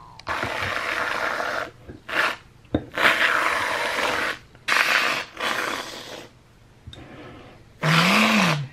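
Reddi-wip aerosol can of whipped cream spraying in about six hissing spurts, a long one of about a second and a half, the rest shorter, with pauses between.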